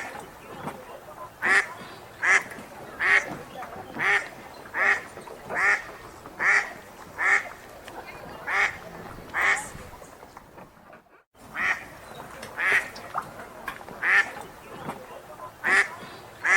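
Wild duck quacking in a long, regular series, a little more than one quack a second, with a short break about ten seconds in before the quacking resumes.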